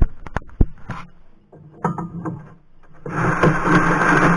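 A few knocks and rattles from gear in an ice-fishing sled. Then, about three seconds in, the loud, steady scraping of the sled being dragged over snow-crusted lake ice begins.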